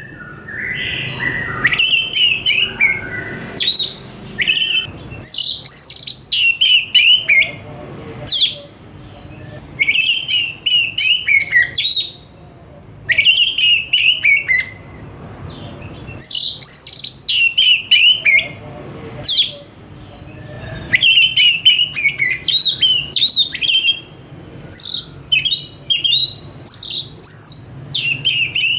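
Oriental magpie-robin singing loudly and continuously (gacor): fast, varied phrases of high whistles and chirps, each a second or two long, following one another with short pauses.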